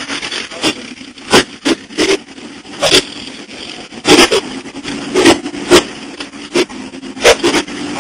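Truck driving off-road through mud, heard from inside the cab. The engine runs steadily under a string of loud, irregular knocks and thuds, sometimes several a second, as the truck jolts through the mud.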